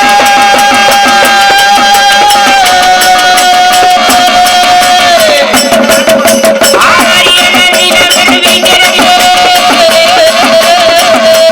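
Traditional Marathi folk devotional music: a long held melodic note that slides down about five seconds in and comes back later, over steady hand-drum strokes.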